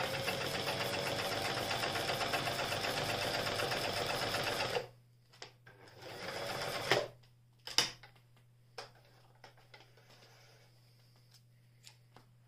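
New Home Janome 641 sewing machine stitching steadily for about five seconds, then stopping abruptly. About a second later it makes a short run of under a second while the reverse button on the stitch-length knob is held down, a backstitch. A few sharp clicks and light knocks follow as the work is handled at the machine.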